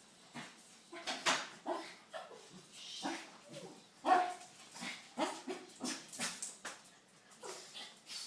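A sleeping dog snoring, whimpering and giving short yips in irregular bursts, the loudest about four seconds in.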